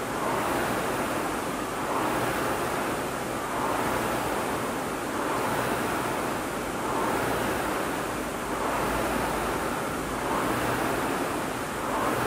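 Air rowing machine's fan flywheel whooshing with each pull, rising and falling in an even rhythm of about one stroke every 1.7 seconds.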